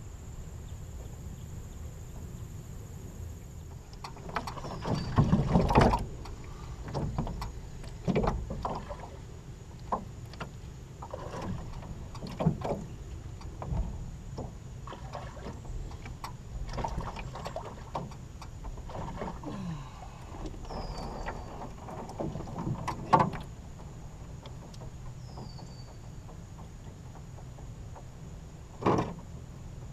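Irregular knocks, bumps and scuffs on the hull and deck of a small aluminum jon boat as an angler shifts his footing and handles rod, fish and tackle. The loudest knocks come in a cluster about six seconds in, with a sharp one past the middle and another near the end.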